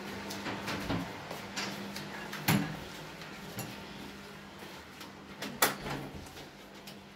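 Footsteps and door handling: a sharp latch click about two and a half seconds in and a louder one about five and a half seconds in, as a wooden front door is opened.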